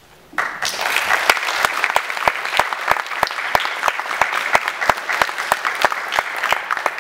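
Audience applauding, starting suddenly about half a second in, with a few claps near the microphone standing out in a steady beat of about three a second.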